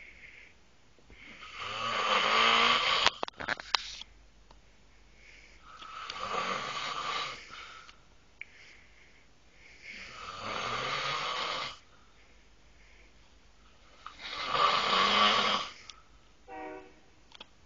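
A man snoring loudly in his sleep: four long snores about four seconds apart, with near quiet between them. A few faint clicks follow the first snore, and a brief whistling tone sounds near the end.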